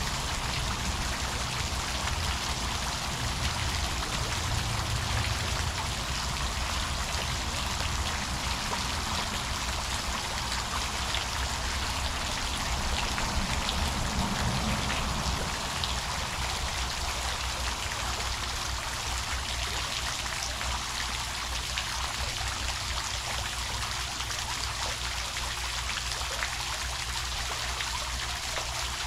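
Fountain water jets spraying and splashing down into the water, a steady hiss. A low rumble under it fades out about halfway through.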